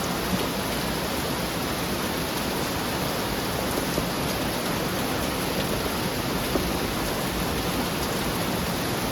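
Heavy rain falling steadily on a metal roof, a dense even hiss with a few sharper drop ticks.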